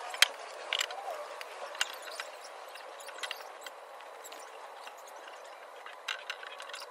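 Wooden boards being set down and shifted on concrete: a few sharp knocks, the loudest just after the start, over a steady hiss.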